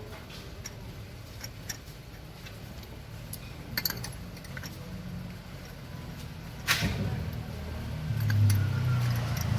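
Small metal clicks and clinks of spark plugs and tools being handled as the plugs are fitted into the engine, with one sharper click about two-thirds of the way through. A low engine rumble comes up near the end.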